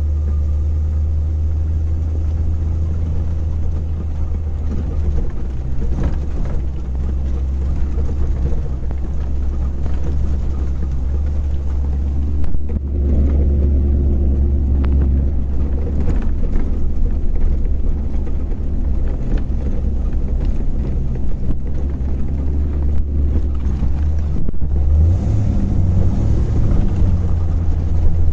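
Chevrolet LS3 6.2-litre V8 swapped into a Land Rover Defender, heard from inside the cabin while driving: a steady, deep exhaust drone. The engine note gets a little louder about halfway through.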